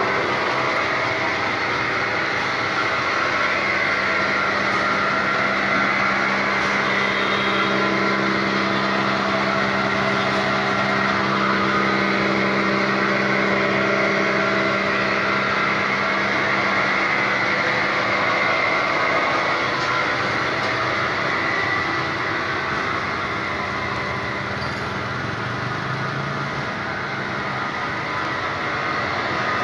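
Plastic crusher driven by an electric motor through V-belts, running steadily with a constant hum and whir.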